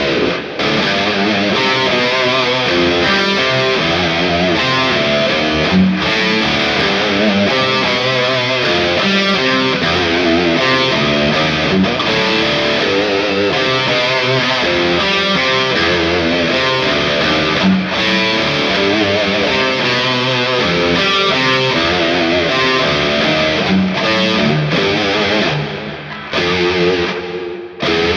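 Ibanez PIA electric guitar played through a distorted amp-simulator tone, a continuous run of changing notes with vibrato on the held ones. The playing thins out with a few short breaks near the end.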